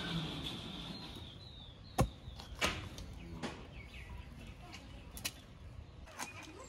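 A heavy cleaver chopping a chicken on a wooden log stump: one sharp chop about two seconds in, followed by a few lighter knocks. Faint bird chirps are heard in the background.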